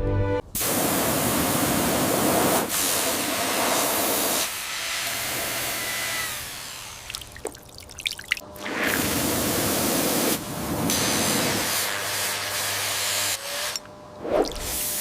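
Hissing spray in several long bursts of a few seconds each, with short pauses and a few faint clicks between them.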